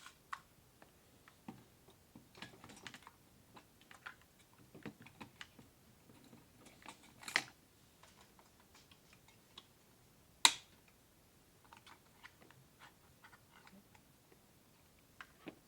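Hands fitting an AMD stock CPU cooler onto a motherboard: scattered light plastic and metal clicks and taps. Two sharp clicks stand out, about seven seconds in and about ten seconds in, the second the loudest, as the cooler's clips catch on the mounting bracket.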